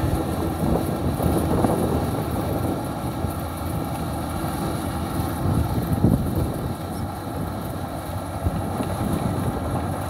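Rice combine harvester's engine running steadily as it cuts through the field, growing slightly fainter as it moves away.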